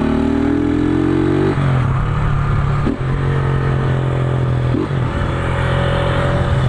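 A 150 cc single-cylinder motorcycle with an aftermarket Roncar ML Competition exhaust, riding and accelerating: the engine note rises, drops about a second and a half in as it shifts up, dips briefly twice more, then runs steadily. The exhaust has a deep note and leaks at the joint where it meets the engine.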